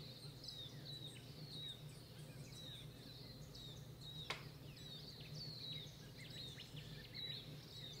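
Faint birds chirping outside, many short falling chirps over a low steady hum, with a single sharp click about four seconds in.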